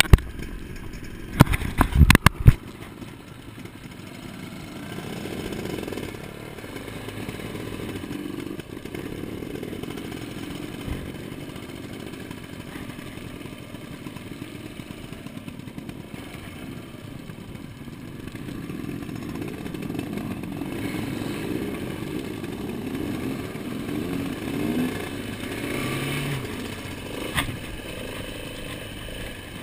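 Dirt bike engine running as the bike rides along a gravel track, swelling and easing with the throttle. A burst of sharp knocks about two seconds in.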